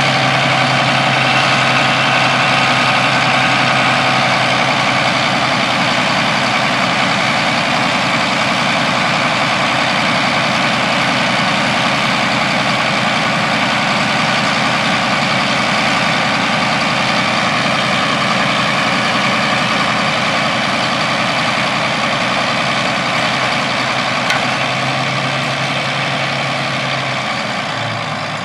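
Allis-Chalmers 4W-220 articulated four-wheel-drive tractor's diesel engine running steadily, easing slightly near the end.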